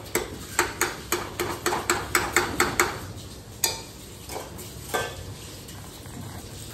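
Metal spoon stirring in an aluminium pressure cooker, clinking and scraping against the pot's sides about four times a second for roughly three seconds, then a couple of single clinks.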